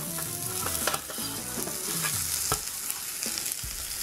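Buttered bread slices sizzling butter-side down in a hot frying pan, with a few sharp clicks of metal tongs against the pan.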